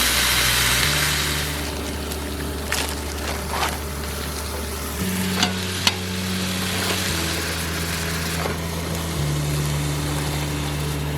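Food sizzling in a frying pan, a steady hiss that is loudest at the start and eases a little, with a few light clicks.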